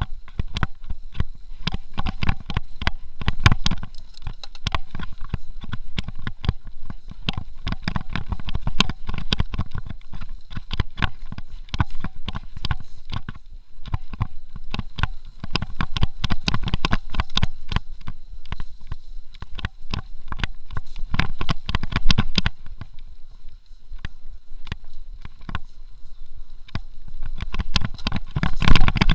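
Mountain bike ridden fast over a rough dirt trail: a constant uneven clatter and rattle of the bike over roots and rocks, over a low rumble of tyres and wind. The jolts grow loudest near the end.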